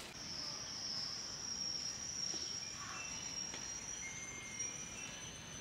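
An insect singing one steady, high-pitched note, with no breaks.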